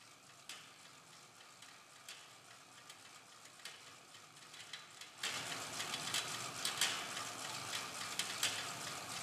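Stationary flywheel exercise bike being pedalled: a steady whir with regular clicking from its mechanism, faint at first, then much louder from about five seconds in.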